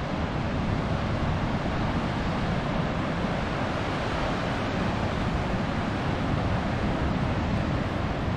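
Steady rush of surf breaking on a rocky shore, mixed with wind blowing across the microphone.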